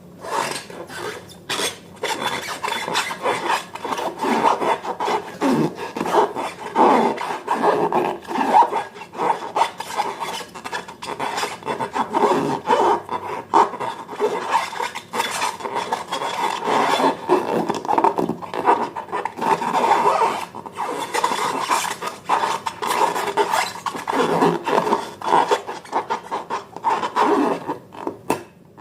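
Slime being worked by hand, with continuous irregular sticky squishing and crackling.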